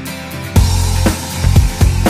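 Background music; a drum beat with a heavy bass comes in shortly after the start.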